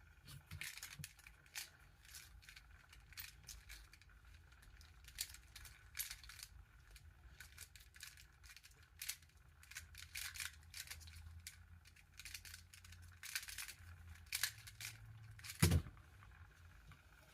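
Square-1 puzzle being turned by hand: a run of irregular plastic clicks and clacks as the layers turn and slice, with one louder knock near the end.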